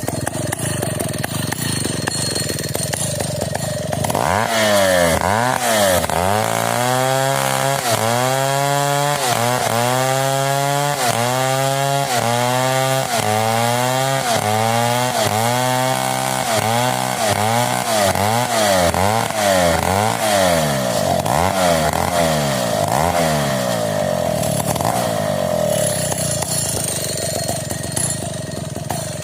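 Stihl 070 two-stroke chainsaw running steadily for a few seconds. It then cuts, its pitch dropping and rising again in a regular rhythm a little faster than once a second as it loads and clears. Near the end it settles back to a steady note.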